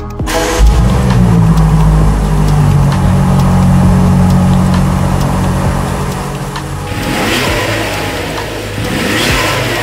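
A BMW M8 Competition's 4.4-litre twin-turbo V8 starts up about half a second in with a loud burst, then settles into a steady, raised idle, as an engine does on a cold start. From about seven seconds in it is revved twice, the pitch climbing and falling each time.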